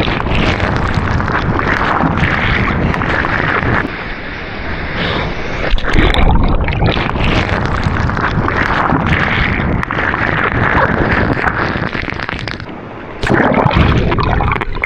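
Loud, continuous rush of breaking ocean surf and wind buffeting the action camera's microphone, easing briefly about four seconds in and again near the end before surging back.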